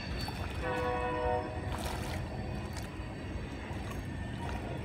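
A hooked catfish thrashing and splashing at the water's surface, over a steady low rumble. Just over half a second in, a horn-like chord of several steady tones sounds for about a second.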